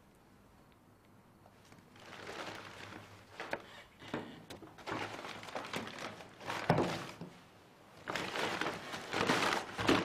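Rustling and light knocks of objects being handled on a table, in several bursts a second or two long with a few sharp clicks among them.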